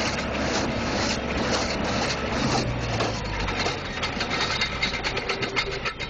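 A tractor pulling a New Holland small square baler while it bales hay: the engine runs steadily under the baler's repeated mechanical clatter, about two strokes a second.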